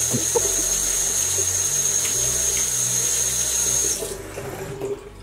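Bathroom sink tap running, water splashing as hair is soaked under it, with a thin steady high-pitched whistle over the flow; both cut off about four seconds in as the tap is shut.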